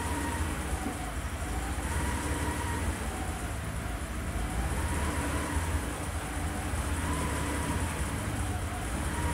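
Mitsubishi 3000GT's V6 engine idling with a steady low rumble. A faint thin whine dips in pitch and comes back every two seconds or so.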